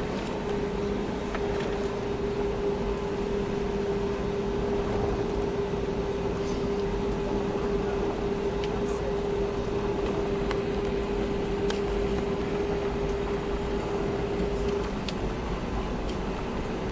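Steady mechanical hum of an airplane, with a constant droning tone over an even rushing noise; the tone cuts off near the end while the rushing noise carries on.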